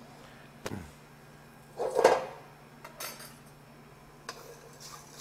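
A metal saucepan being handled on a gas range: a few knocks and a clatter of metal, the loudest about two seconds in, then lighter clicks.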